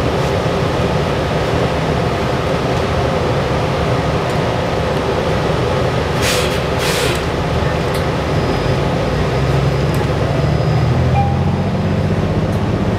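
Inside a New Flyer XDE60 hybrid diesel-electric articulated bus on the move: steady drive drone and road noise, with two short bursts of air hiss about six and seven seconds in, and the low drone growing louder about eight seconds in.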